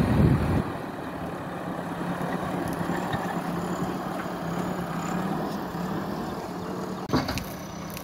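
Diesel engine of a JCB 3DX backhoe loader running steadily as the machine backs away from the dump truck, louder for the first half second. A single sharp knock comes near the end.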